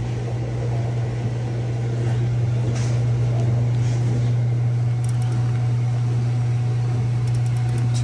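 A steady low machine hum, unchanging, with a faint hiss over it.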